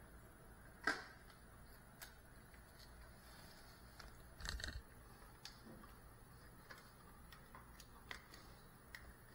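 Near silence: faint room tone with scattered small clicks and taps, the loudest a sharp click about a second in and a brief cluster of knocks about halfway through.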